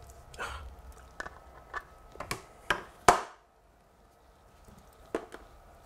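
Pasted paper backscene being pressed and smoothed onto a wall by hand: a run of short taps and paper rustles. The loudest is a sharp rustle about three seconds in, followed by a short lull and then two more taps.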